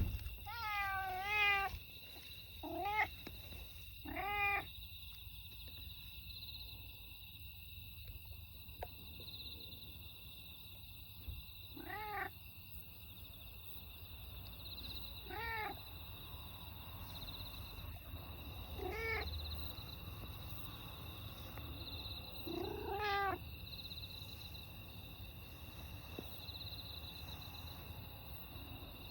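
Stray cat meowing repeatedly: several quick meows in the first few seconds, then single meows every three to four seconds, each with a rising-then-falling pitch.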